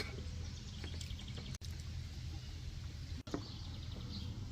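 Outdoor farm ambience: a steady low hum with a few faint bird chirps. The sound drops out briefly twice, at splices, about a second and a half in and again about three seconds in.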